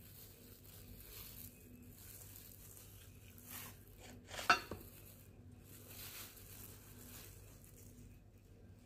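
Faint hand-eating sounds: plastic-gloved fingers picking at fried fish on a plate, with soft rustles throughout. About halfway through comes one sharp clink of dishes, the loudest sound.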